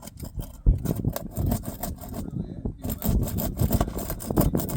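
Scraping and rubbing as old asphalt shingles are pried loose from their seal, with a sharp knock less than a second in.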